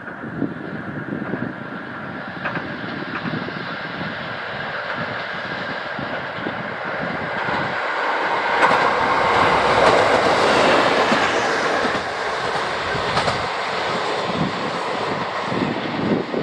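A train passing along the line, its wheels clattering on the rail joints, the rumble building to its loudest about two-thirds of the way through and then easing off.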